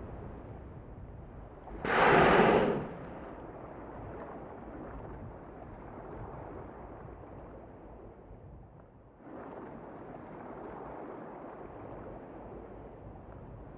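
Whale blowing at the surface: one loud, rushing exhalation about two seconds in, over steady low sea noise. A softer rush of noise comes in again about nine seconds in.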